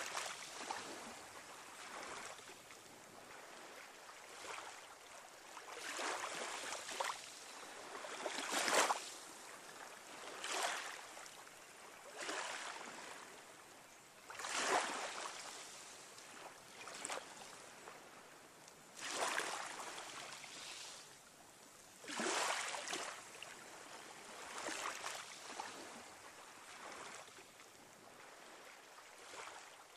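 A rushing noise that swells and fades again every two to four seconds, with no steady tone in it.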